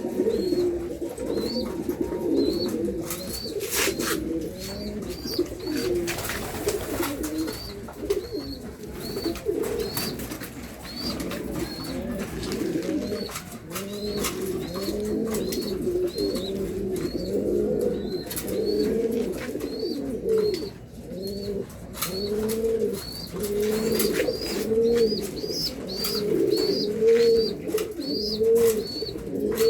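German beauty homer pigeons cooing, several at once in overlapping low coos, with a thin high peep repeating about twice a second and a few scattered clicks.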